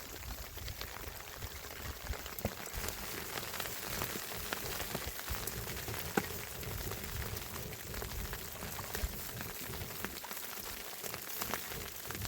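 Steady rush of flowing water, with scattered small clicks and taps over it.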